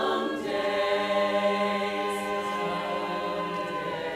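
A cappella chorus holding a long sustained chord on the word "fourth", the lowest voice entering about a second in and stepping down once partway through.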